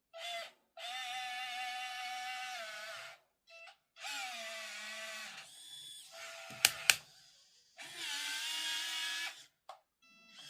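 Small electric gear motors of a 1:50 scale RC excavator and loader whining in four bursts of one to two seconds each, the pitch sagging a little as a motor takes load. Two sharp clicks come a little past the middle.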